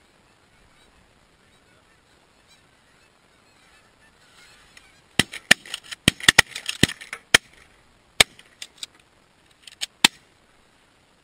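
Canada geese honking as a flock comes in over the decoys, then a volley of shotgun blasts from several hunters: about a dozen sharp shots over some five seconds, starting about five seconds in, with the honking loudest among the first shots.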